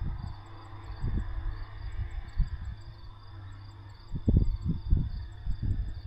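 Crickets chirping in a rapid, even series of short high pulses, about five a second. Low rumbling gusts of wind buffet the microphone, loudest about four to five seconds in.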